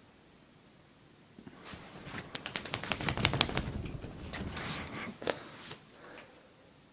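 A dog's claws rapidly clicking and scrabbling as she scrambles off, starting about a second and a half in, loudest in the middle, with one sharper click a little after five seconds before it fades.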